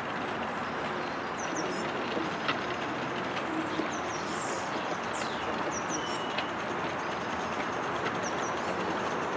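Accucraft 16 mm scale live-steam Hunslet locomotive and its wagons running slowly on the track, a steady noisy running sound. A small bird chirps a short high call about every two seconds.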